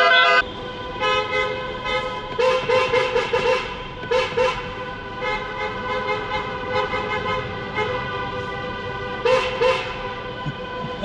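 Car horns honking, taxis in a protest convoy sounding their horns, heard from inside a moving car: a steady held horn note with three bursts of quick repeated toots over it.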